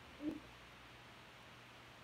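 A single short vocal sound from a person, lasting about a quarter of a second and rising slightly in pitch, shortly after the start; the rest is quiet room tone.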